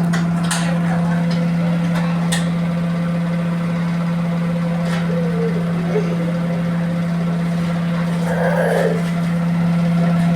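Electrolux 15 kg commercial washing machine in its final spin at 1245 rpm, its motor and drum giving a loud, steady hum with a few faint clicks and knocks. The load is unbalanced.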